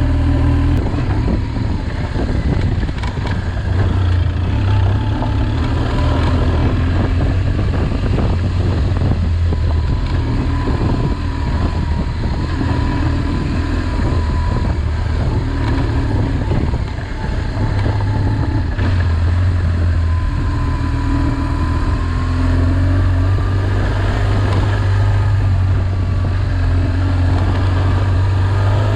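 A vehicle engine running continuously under load, its note rising and falling several times, with a brief easing off a little past halfway.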